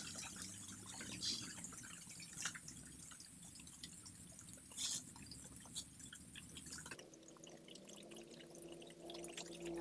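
Faint handling noise of nylon rope being pulled and knotted around a bundle of wooden branch sticks: scattered small clicks and rustles, with a few sharper ticks. A faint steady hum comes in near the end.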